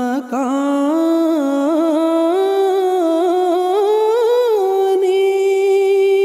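A man singing an Urdu nazm unaccompanied, drawing out a wordless ornamented run that climbs in small turns and then settles into one long held note about two-thirds of the way through.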